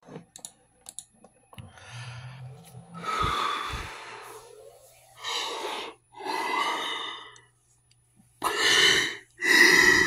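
A man breathing heavily into his cupped hands: a series of about five loud, breathy huffs and gasps, the last two the loudest, after a few faint clicks at the start.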